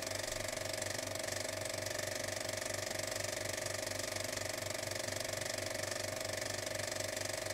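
Steady mechanical running noise with a fast, even pulse and a constant mid-pitched hum over a hiss.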